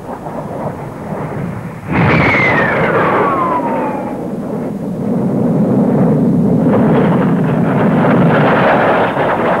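Hawker Hunter jet fighters flying past. A sudden rush of jet noise comes in about two seconds in, with a whine that falls steadily in pitch as a jet goes by. A continuing rumble follows and swells again near the end.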